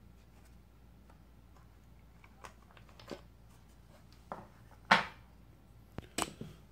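Handling noise: a brass cartridge case being taken from its box and turned in the hand, with scattered small clicks, a sharp knock about five seconds in and a short clatter of knocks a second later.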